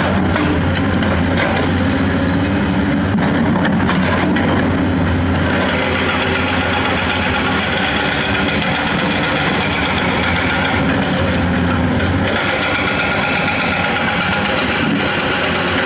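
Diesel engines of Komatsu hydraulic excavators running steadily under load while digging hard limestone, with a continuous drone and a brighter, noisier edge from about a third of the way in.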